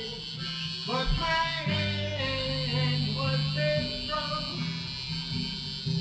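Background music: a song with a singing voice over instruments and held bass notes.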